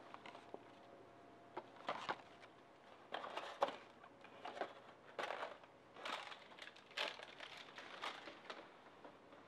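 A paper takeout bag and a foam clamshell food container being handled and opened, rustling and crackling in irregular bursts.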